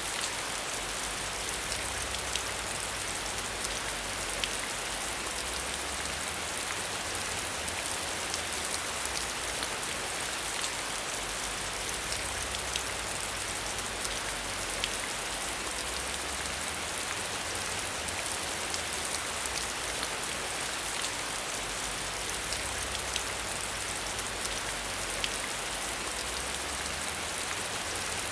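Steady rain falling with a dense patter of individual drops, heard behind a window.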